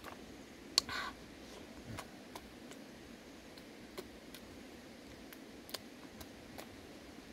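Eating sounds from chewing and gnawing cooked chicken feet: scattered short, sharp smacks and crunches, the loudest about a second in, over a faint steady background.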